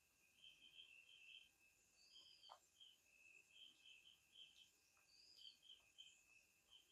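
Near silence, with very faint quick high chirping throughout and a short arching call about every three seconds.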